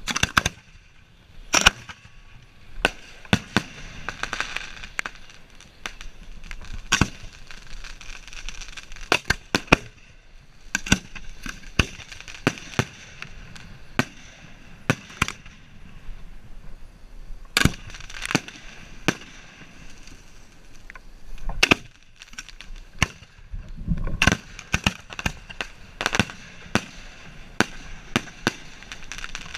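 Fireworks being hand-fired: sharp bangs at irregular intervals, a little more than one a second and sometimes several close together, some loud and close. A steady hiss from a burning road flare runs underneath.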